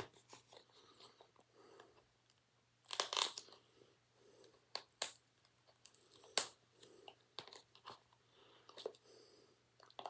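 DVD packaging being handled: plastic crinkling and crackling with scattered sharp clicks, and a louder rustle about three seconds in.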